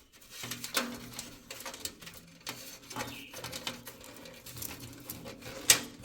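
Light clicks and taps of hands handling a desktop PC case and its parts, with one sharper click just before the end.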